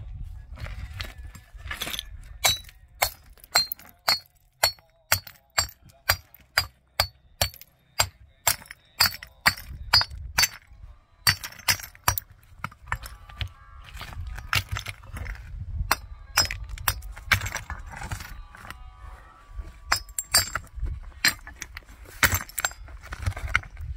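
Repeated sharp clinks and knocks of hard objects striking one another with a brief bright ring. For several seconds early on they come at a steady rate of about two a second, then they turn irregular.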